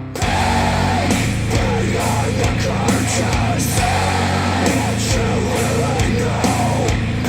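Loud rock music played back through Wharfedale Denton 80th bookshelf speakers driven by a NAD C 388 integrated amplifier, shifting abruptly into a new section at the very start.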